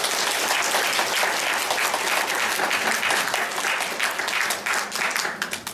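Audience applauding, a dense run of many hands clapping that thins out and stops near the end.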